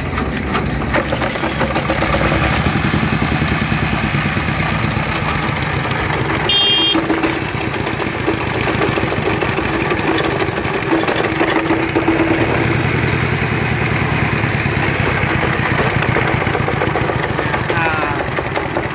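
Jiang Dong ZH1115 single-cylinder four-stroke diesel engine running steadily with a fast, even chug. A brief sharp high sound cuts in about six and a half seconds in.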